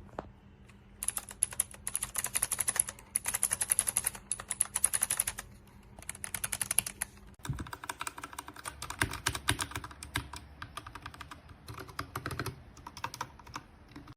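Fast typing on a mechanical keyboard with Cherry MX–style switches: rapid runs of key clicks in several bursts, then a cut about halfway through to a second passage of typing with a fuller, lower sound.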